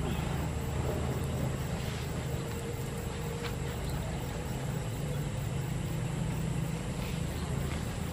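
A motor running steadily, a low even drone, with a few faint clicks over it.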